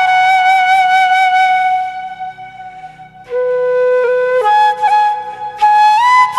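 Background music: a slow melody of long held, pitched notes that fades almost out about two to three seconds in before the next phrase begins.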